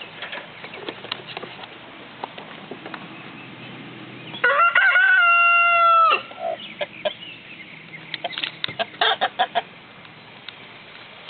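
A rooster crows once, a single crow of under two seconds about four seconds in, followed by a run of short clucks from the hens.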